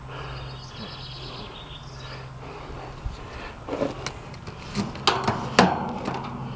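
A few light knocks and clinks of metal parts and tools being handled over a steady low hum, with faint high chirping in the first second or so.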